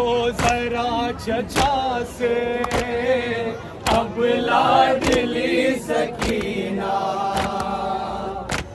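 A group of voices chanting a Muharram nauha (lament) together in long, wavering held notes. Sharp beats land about once a second in time with the chant.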